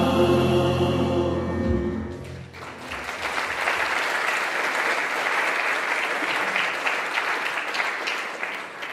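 A church praise band and choir hold the final chord of a worship song, which dies away about two seconds in; then the congregation and choir applaud steadily.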